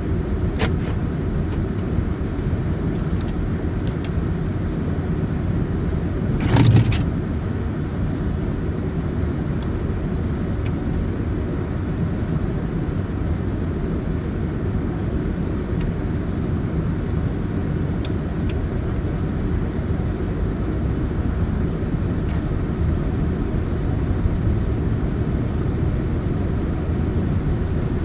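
Steady low rumble from inside a car with its engine running in the rain. A few light ticks are scattered through it, and there is one brief thump about six and a half seconds in.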